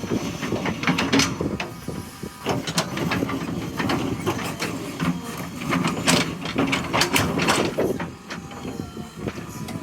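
JCB 3DX backhoe loader at work: its diesel engine runs steadily under a rapid, irregular series of clanks and knocks.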